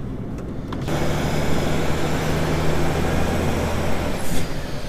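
Lorry's diesel engine pulling away under load, heard from inside the cab. The sound swells suddenly about a second in, then holds as a steady low drone for about three seconds.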